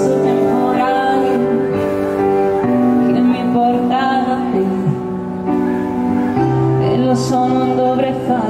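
A live pop band playing, with keyboards, electric guitars, bass and drums, while a woman sings the melody into a microphone.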